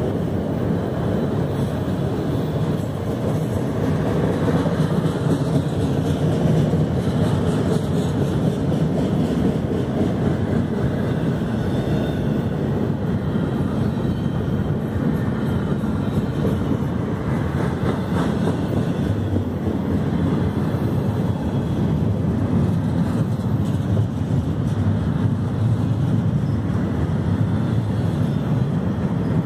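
Freight cars of a long mixed train rolling past at close range, a steady rumble of steel wheels on the rails as autoracks, intermodal well cars and boxcars go by.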